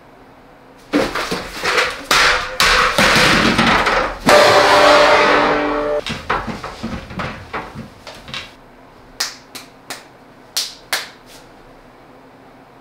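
A flurry of rapid loud knocks and slaps with a short ringing musical tone at its loudest point, then a string of single sharp slaps that thin out and stop.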